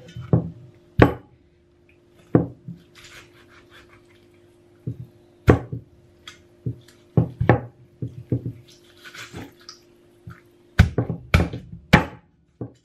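Chinese cleaver chopping poached chicken on a wooden cutting board: sharp knocks of the blade striking the board, a few spaced out at first, then a quicker run of chops near the end.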